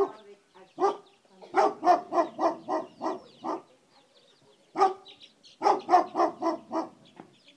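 Dog barking in quick runs of sharp barks, about four a second: a single bark, then a run of about eight, another single bark, and a run of about five near the end.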